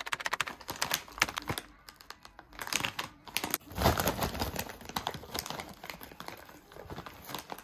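Foil-lined plastic snack bag crinkling as it is handled and torn open by hand: a dense crackle of crinkles, loudest about four seconds in.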